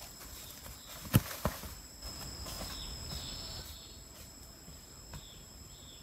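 A length of green bamboo dropped onto a leaf-covered dirt path: two thuds about a third of a second apart, a second in. Footsteps in dry leaves follow, over steady high insect buzzing.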